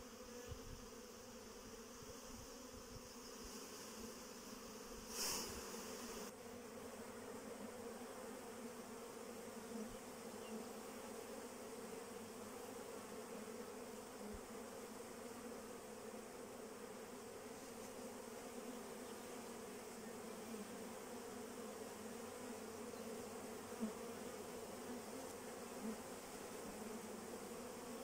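Honeybees massed at a hive entrance, buzzing in a steady low hum, with a short louder rush about five seconds in.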